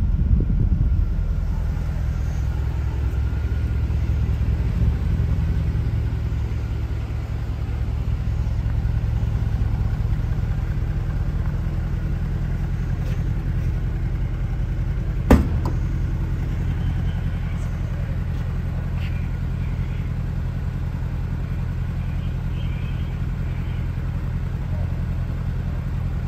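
Mercedes-Benz C63 AMG Black Series 6.3 V8 idling steadily with a deep, even rumble. A single sharp knock sounds about halfway through.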